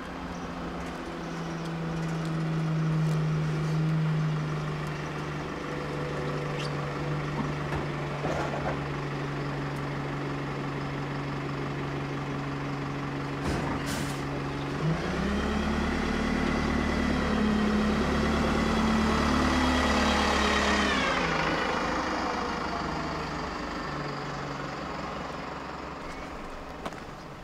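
City bus engine running at a stop with a steady low drone. About halfway through it revs up with a rising whine, which falls away after a few seconds as it pulls off and fades.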